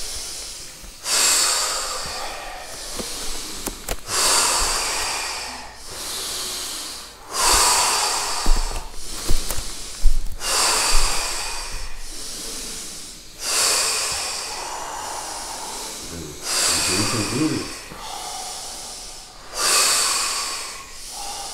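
Deep, forceful breathing in a steady rhythm, about one full breath every three seconds: the deep-breathing round between breath holds in a breathwork exercise.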